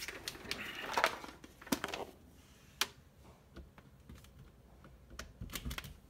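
Rustling of a power cord being handled, with a few sharp clicks as its plug is pushed into a wall outlet, the loudest about a second, a second and a half and nearly three seconds in, then only faint small ticks.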